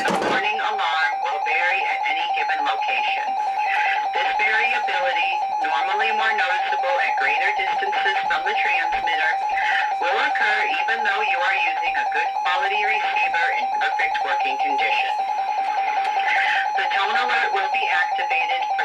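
Emergency alert attention tone from a weather-radio alert test: one steady, unbroken electronic tone, with muffled speech audible beneath it.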